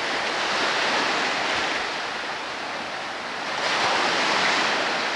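Lake Superior waves breaking on the shore: a steady wash of surf that swells, eases off and rises sharply again a little past halfway.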